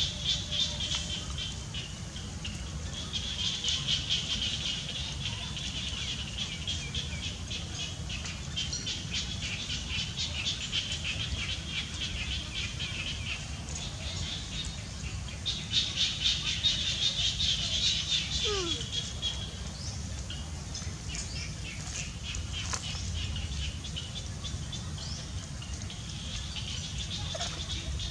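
Outdoor wildlife chorus: a high, fast-pulsing chirring that swells and fades in stretches of a few seconds, over a steady low rumble.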